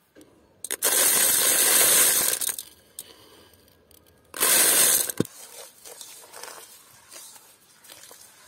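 Uncooked rice grains poured from a plate into a cooking pot, a hissing rattle of grains in two pours, the first about two seconds long and the second shorter, followed by a sharp click.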